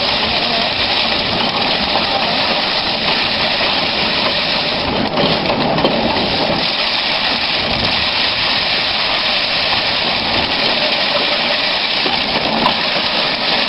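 Foot-pedalled rice thresher running, its drum spinning with a steady, dense whir as rice stalks are threshed.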